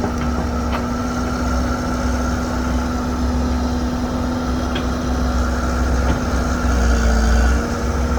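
Heavy diesel machinery running steadily: an excavator's engine at work loading a dump truck, a constant low rumble with a steady hum above it.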